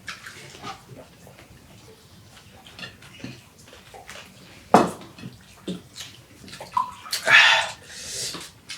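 A person eating a rice meal by hand: wet chewing and mouth noises with small clicks, one sharp knock about five seconds in, and a louder noisy stretch near the end.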